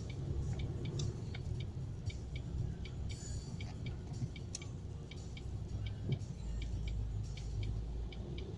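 Car cabin sound: a low engine and road rumble with the turn-signal indicator ticking steadily, about two to three clicks a second.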